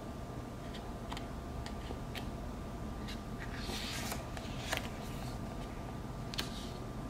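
Glossy photo book pages being handled and turned, with a short paper swish about four seconds in and a few small clicks and taps of paper, over a steady faint hum.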